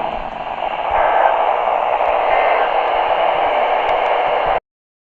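Radio static: a steady hiss from a radio receiver between broadcasts, cutting off suddenly about four and a half seconds in.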